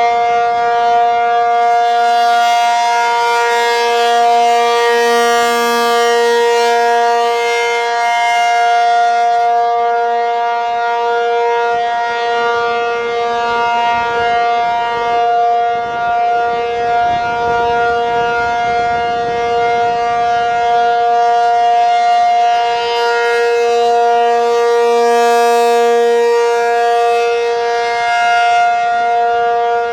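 ACA P-50 electromechanical tornado siren sounding a steady alert for the monthly siren test: a loud, held two-note chord that does not rise or fall in pitch. It swells and fades slowly, brightest about five seconds in and again some seconds before the end.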